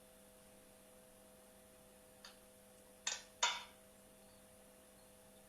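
Three short clicks, a faint one about two seconds in and two sharper ones close together about three seconds in, over a faint steady electrical hum.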